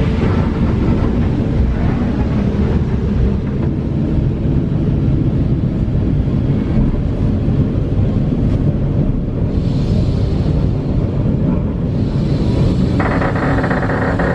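Steady low rumble of an EN71 electric multiple unit heard inside the passenger car as it pulls into a station. About 13 seconds in, a higher sound made of several steady tones joins in.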